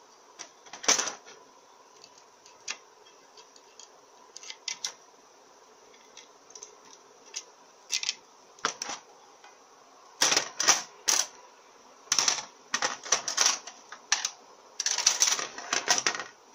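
Irregular light metallic clicks and clatters as the aluminium valve body of an FN4AEL automatic transmission and its small parts are handled and set down on a metal bench tray. The clicks come sparsely at first, then come thick and louder in the last six seconds or so.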